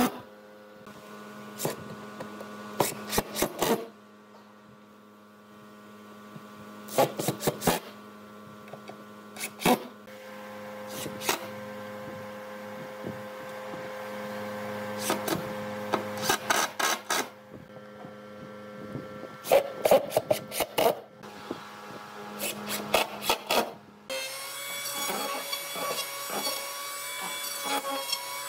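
Cordless impact driver driving screws into pine boards in several short bursts of rapid clicking over a steady hum. About 24 s in, an electric hand planer starts running.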